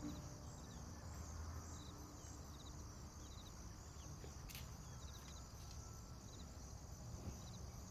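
Faint outdoor ambience: a steady high-pitched insect chorus with short bird chirps repeating every second or so. A single sharp click comes about four and a half seconds in.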